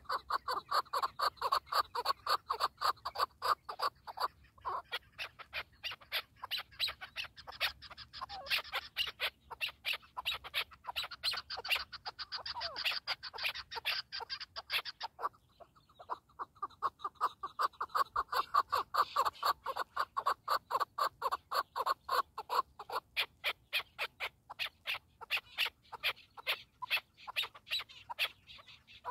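Chukar partridge calling: a long series of rapid, repeated chuck notes, several a second, which breaks off briefly about halfway through and then starts again.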